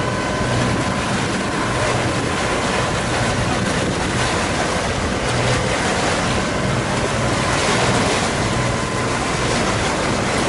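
Motorboat engine running steadily under load while it pulls a grounded sailboat by a line to its masthead, with water rushing past the hull and wind buffeting the microphone.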